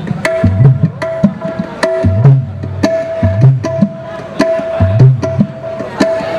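Dangdut gendang (kendang hand drum) played solo through a PA during a sound check. Deep bass strokes that bend in pitch alternate with sharp, high slaps in a steady groove.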